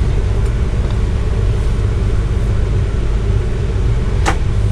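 Steady low rumble, with one sharp click about four seconds in.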